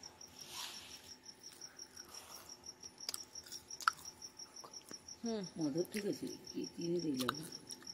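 A cricket chirping in an even, rapid train of high chirps, with a few light clinks (the sharpest about four seconds in) and a brief low voice near the end.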